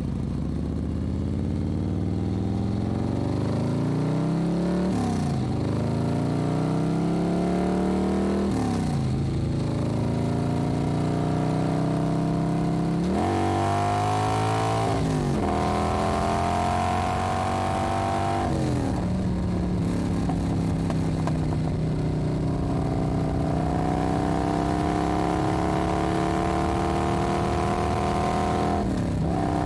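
Motorcycle being ridden at low pitch. Through the first part the engine note rises, then drops sharply several times as the gears change. After that it runs at a steady, slowly climbing pitch, with one more drop near the end.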